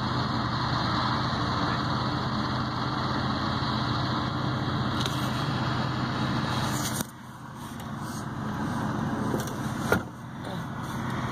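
Vehicle engine running steadily, heard from inside the cab. About seven seconds in the sound drops sharply and then builds back up, with a sharp click about ten seconds in.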